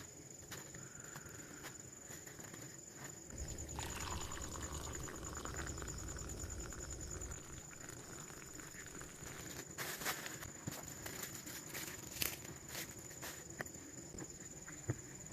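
Faint sounds of someone eating a bowl of chicken noodles, with scattered sharp clicks and taps and a low rumble for a few seconds about four seconds in. A steady high-pitched whine runs underneath.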